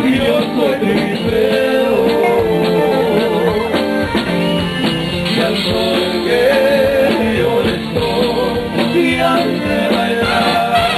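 Live Tejano band music, played loudly and continuously, with a wavering melody line and possibly voice over the band.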